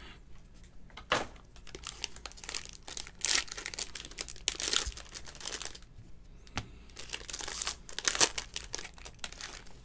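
Foil trading-card pack wrapper crinkling and tearing as it is ripped open by hand, in irregular bursts of crackle.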